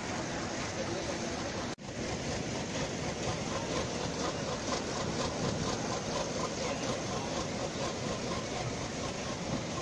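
Bus diesel engine idling steadily, with a momentary break in the sound about two seconds in.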